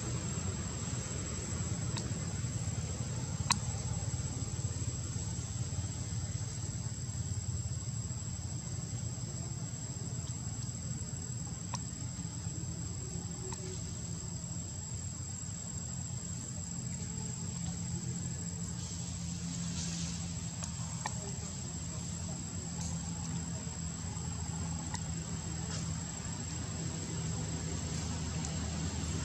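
A steady, high-pitched insect drone over a low rumble, with a few faint clicks and a short swell of high hiss about two-thirds of the way through.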